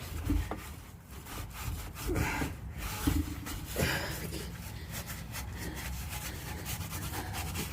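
Rusty exhaust metal being scuffed by hand with an abrasive, in irregular rubbing strokes, to rough up the surface so paint will adhere.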